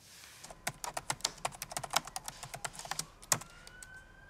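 Fingers typing on a laptop keyboard: a quick, irregular run of key clicks that ends on one harder keystroke. A rising wail begins about three seconds in.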